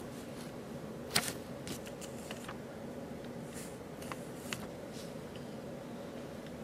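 Light handling of a paper instruction sheet: a few soft crackles and rustles, the sharpest about a second in, over a faint steady hum.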